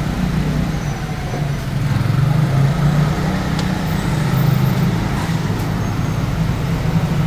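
Steady low hum of a vehicle engine idling.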